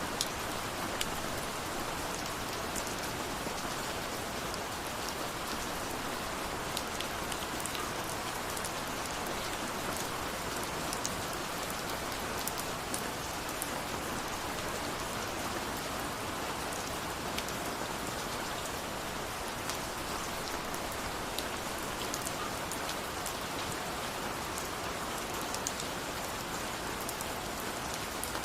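Steady rain falling, an even hiss with scattered sharp drops ticking on a surface.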